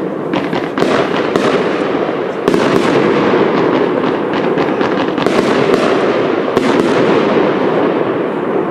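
Fireworks going off: a continuous dense crackling and hissing, cut through by several sharper bangs; it gets louder about two and a half seconds in.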